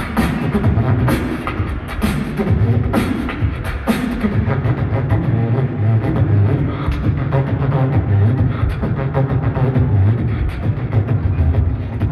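Live beatboxing: vocal percussion with sharp snare-like hits over a deep pulsing bass line. After about four seconds the bass dominates and the sharp hits come less often.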